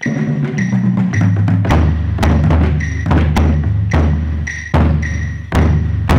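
Marching bass drum struck with a mallet, a rhythmic run of low, ringing booms at a few different pitches, with sharp attacks several times a second in places.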